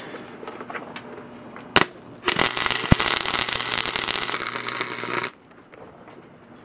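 Wire-feed welder's arc crackling and buzzing as a weld bead is run along a steel clamp: a short strike about two seconds in, then about three seconds of steady crackle that cuts off suddenly.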